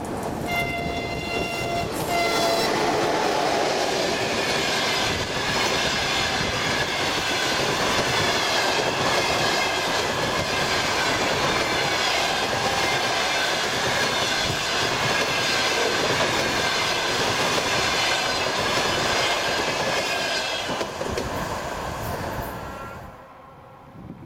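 ChS2T electric locomotive sounding its horn, one long blast and a short one, then the locomotive and its passenger train passing close with the steady clatter of wheels on the rails. The noise fades out near the end.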